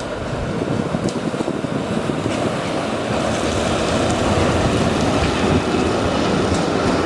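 Tram running along street rails: a noisy rumble that grows louder about halfway through, with wind buffeting the microphone.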